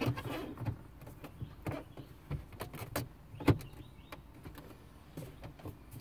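Plastic radio bezel being pressed into a car dash: a series of short plastic clicks and knocks as its retaining clips are pushed home, the loudest about three and a half seconds in.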